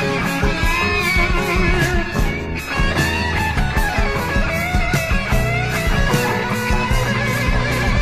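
Heavy 1970s rock recording: electric guitar playing wavering, bending lines over bass and drums with steady cymbal strokes.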